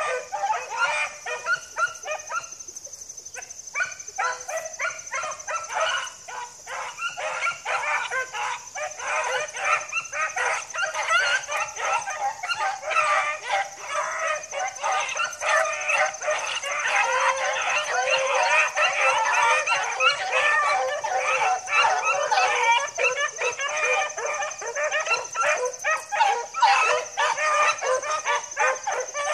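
A pack of beagles baying in chorus, many voices overlapping. The cry thins briefly a few seconds in, then swells fuller and denser past the middle.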